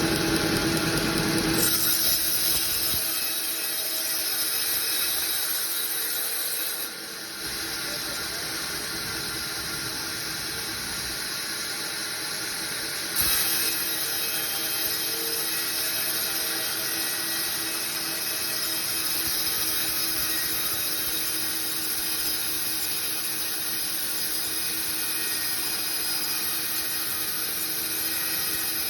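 Sawmill saw running and cutting through timber: a steady machine noise with a high hiss, which changes in strength a few times as the cut goes on.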